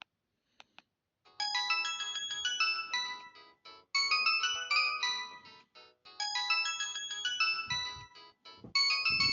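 Samsung E1080i mobile phone playing one of its original ringtones: a bright synthesized melody that begins about a second in, its phrase repeating roughly every two and a half seconds. Two short clicks come just before it starts.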